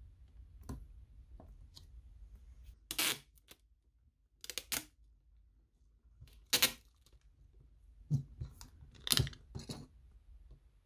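Several short tearing and crinkling bursts of clear tape being pulled and pressed over the cracked glass back of an iPhone XS Max, with a few light clicks of a plastic spudger on the phone's internals.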